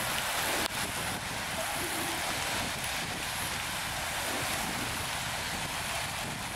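Traffic on a wet city road: a steady hiss of car tyres on rain-soaked tarmac.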